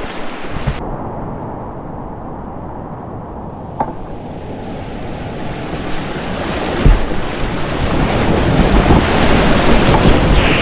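Rushing whitewater of a steep mountain river, a loud steady roar with wind buffeting the camera microphone. The high hiss drops away abruptly just under a second in, and the roar grows louder through the second half with occasional low thumps.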